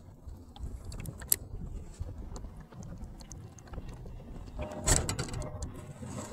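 Clicks and knocks of fishing tackle being handled in a kayak, over a low rumble, with a louder clatter about five seconds in.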